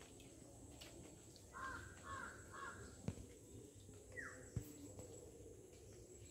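A crow cawing faintly three times in quick succession, then a short falling call and two sharp knocks about a second and a half apart.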